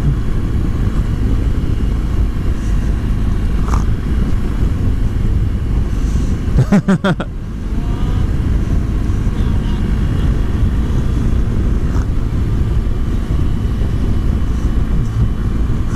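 Steady riding noise on a liquid-cooled BMW R1200GS boxer twin at road speed: wind rushing over the rider's microphone mixed with the engine's drone. A brief voice-like sound comes about seven seconds in.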